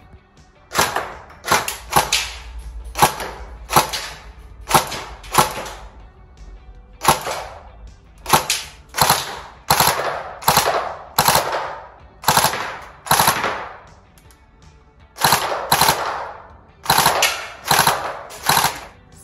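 Tokyo Marui next-generation AKS74U electric airsoft gun firing one shot at a time, about two dozen shots with a couple of short pauses. Each shot is a sharp crack with a short echo off the range's concrete walls.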